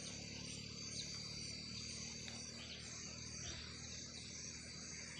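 Insects calling in the grass: a steady high drone with a faint, evenly pulsing trill above it, about three pulses a second. A few faint short bird chirps come through now and then.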